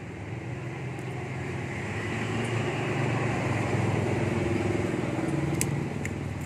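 A motor vehicle passing on a nearby road, its engine and tyre noise swelling to a peak midway and then fading away.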